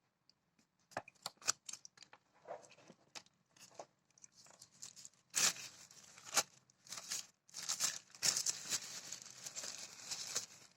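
Packaging being handled and torn open: scattered clicks and rustles at first, then from about five seconds in a long stretch of tearing and crinkling with a short break partway.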